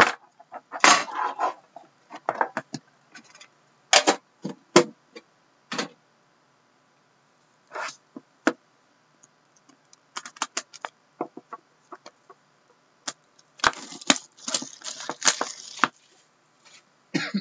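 Handling of a metal collector's tin and the cardboard box inside it: scattered clicks, knocks and scrapes with short pauses, as the tin is opened and the box is taken out, and a denser stretch of scraping and rustling near the end.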